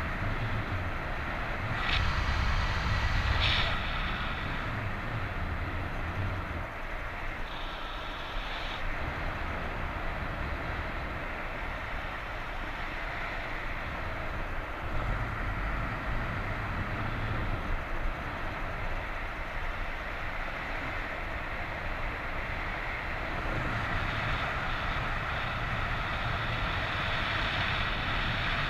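Wind rushing over the microphone in flight under a paraglider, with a low buffeting rumble that swells in gusts a few seconds apart.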